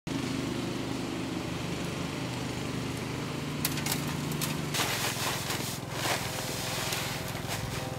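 Paper sack of dry concrete mix handled, torn open with crackling rustles, then poured into a steel wheelbarrow with a rushing hiss lasting about a second midway. A steady engine hum runs underneath and stops about five seconds in.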